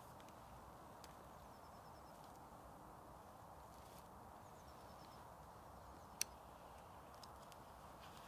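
Near silence: faint, steady outdoor ambience in a woodland, with a few soft ticks and one sharp click about six seconds in.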